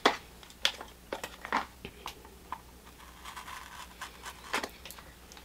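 Fingers picking at and peeling the tape off a small cardboard box, heard as scattered light clicks and scratches, with a short scratchy stretch near the middle.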